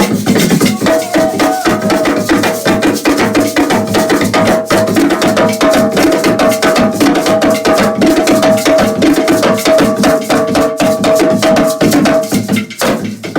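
Live drumming: hand drums and other percussion struck in a fast, dense rhythm. A single held tone sounds over the drums from about a second in until shortly before the end, and the playing briefly drops away near the end.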